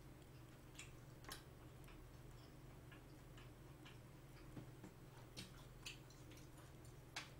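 Near silence with a low steady hum, broken by about seven faint, scattered clicks and taps from eating: mouth sounds while chewing a bite of spicy steamed clams and bean sprouts, and wooden chopsticks touching the pan.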